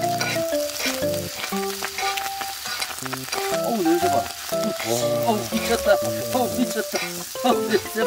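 Fried rice sizzling on a hot griddle pan as it is stirred, with metal utensils scraping and tossing it across the pan surface.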